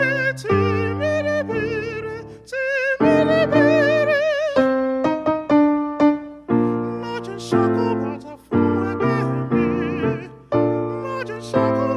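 A solo singer holding long notes with wide vibrato over piano accompaniment. About halfway through, the piano carries on alone with struck, fading chords before the voice returns.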